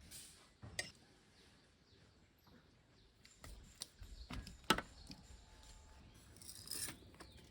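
Scattered light clicks and knocks of small objects being handled, one sharper knock near the middle, and a brief rustle near the end.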